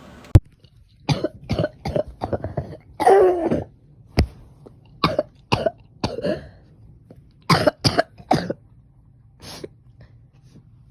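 A run of people coughing: many short, sharp coughs in quick clusters, with a longer, voiced cough about three seconds in.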